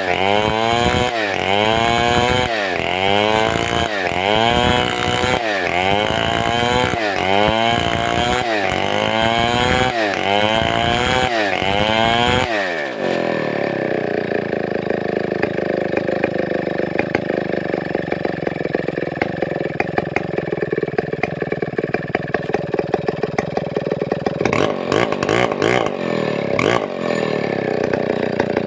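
Large two-stroke chainsaw, a 070/707 class saw, revving up and falling back over and over at a steady rhythm, roughly once every second and a bit. About halfway through, the pitch drops sharply and the saw keeps running at a steadier, lower note. Rapid ticking joins it near the end.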